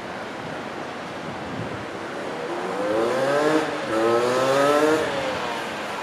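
A motor vehicle engine accelerating: its pitch rises, drops briefly about four seconds in as if changing gear, then rises again before fading, over a steady wash of background noise.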